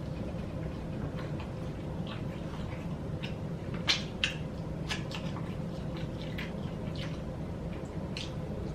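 Close-miked eating of a fried chicken wing: scattered wet chewing and mouth-smacking clicks, two louder ones about four seconds in, over a steady low hum.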